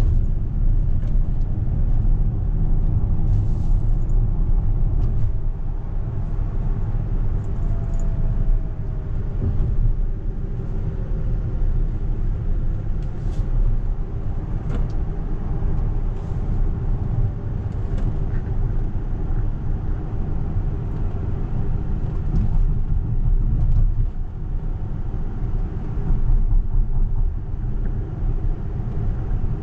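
Steady low road and tyre rumble inside the cabin of a moving Tesla Model X 100D, an all-electric SUV, with a faint whine that rises and falls about a third of the way in.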